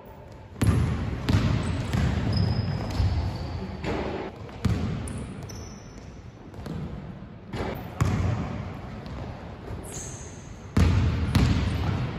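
Basketball bouncing on a hardwood gym floor during play: irregular, heavy bounces that echo through the large hall. A few short high-pitched sneaker squeaks are heard between them.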